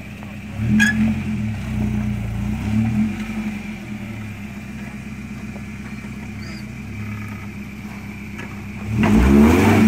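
Lifted first-generation Toyota 4Runner's engine running at low revs while rock-crawling, with throttle blips about a second in and a louder rising rev near the end.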